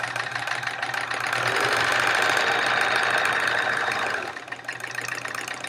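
Vintage 1970s Sears Kenmore sewing machine stitching: motor humming and needle mechanism running steadily. It speeds up about a second and a half in and slows toward the end. It runs really smooth, freshly oiled and on a new lug-type motor belt.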